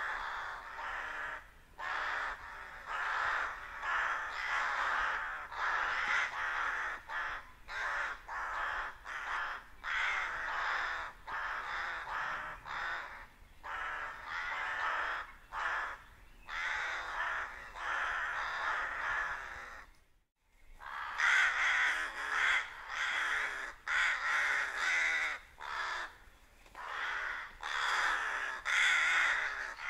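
A large flock of rooks cawing together, a dense chorus of many overlapping harsh caws with no let-up, cut by a sudden silent break of under a second about twenty seconds in.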